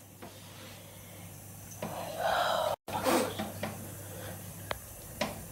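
A person's short gasps and breaths, with a few faint clicks.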